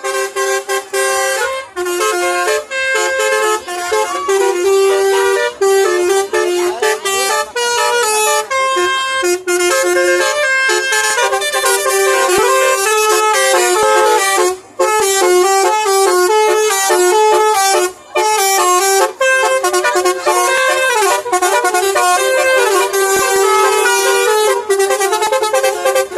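Bus 'telolet basuri' musical air horns playing a quick tune of short notes stepping up and down in pitch, nearly without pause, with brief breaks about fifteen and eighteen seconds in.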